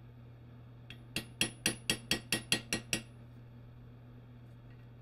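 Small ball-peen hammer tapping a socket used as a driver, seating a needle bearing in the bore of a Wheel Horse 8-speed transaxle case. About nine quick metal-on-metal taps, roughly four a second, between about one and three seconds in.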